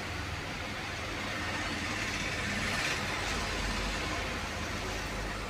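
Steady mechanical hum and hiss with no distinct clicks or strokes, swelling slightly in the middle.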